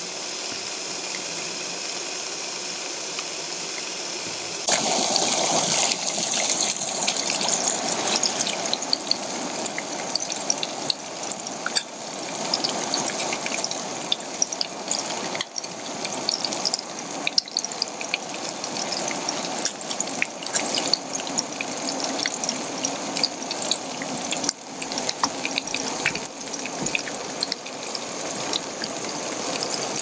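Food sizzling in oil in a pot on a camping gas stove. It starts as a steady hiss, then grows louder about five seconds in, with many small crackles and spatters.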